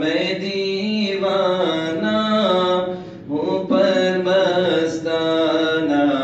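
Sufi devotional song (a manqabat in praise of Nizamuddin Chishti) sung by a solo voice in long, drawn-out notes over background music, with a brief break about three seconds in.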